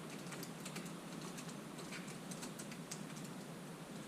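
Faint, irregular light clicks and taps of a hand tool and small metal parts being handled while a headlight and fender screw are worked loose on an e-bike.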